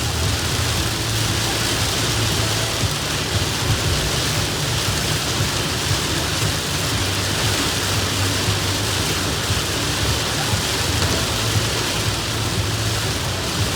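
Heavy rain pouring down in a steady, even hiss, with a low rumble running underneath.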